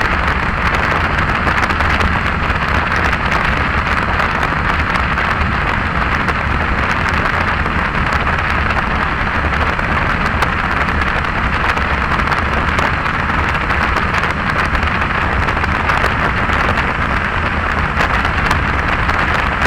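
Wind rushing and buffeting over the microphone of a rider moving along the road on a bike, a steady loud crackling rush with a low rumble beneath it.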